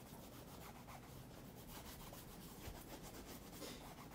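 Faint, quick strokes of a cotton cloth loaded with shoe wax rubbing over the leather of a Tricker's Stow boot. The wax's solvent is dissolving the old shoe cream on the surface.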